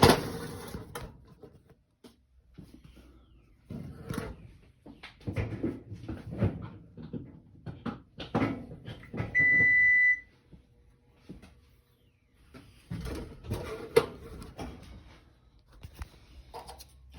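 Knocks and clatter of the stove's panel and parts being handled, with one loud, steady beep about a second long partway through: the electric range's control signalling as the power is restored.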